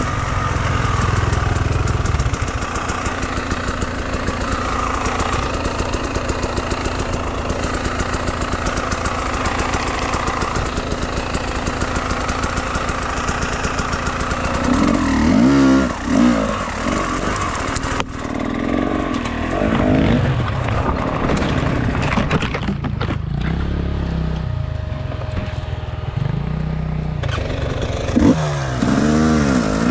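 Enduro motorcycle engine running steadily, revving up and down about halfway through and again near the end.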